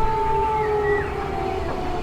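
Siren holding a steady tone that slowly sinks in pitch, over a low rumble.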